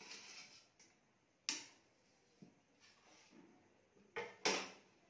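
A blade scrapes around the inside of a metal cake tin to loosen a baked pound cake. Then come several separate knocks as the tin is upturned onto a plate, with a sharp double clatter near the end as the tin is tapped to release the cake.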